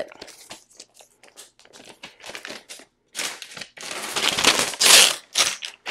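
Protective wrap sheet being peeled off a new laptop and crinkling. It starts as faint crackles, then crinkles loudly in several bursts from about three seconds in, loudest near the end.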